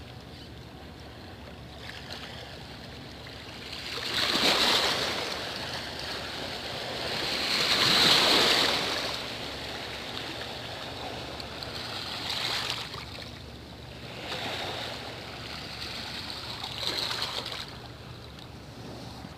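Sea waves washing in and out, coming in slow surges; the biggest are about four and eight seconds in, with smaller ones later.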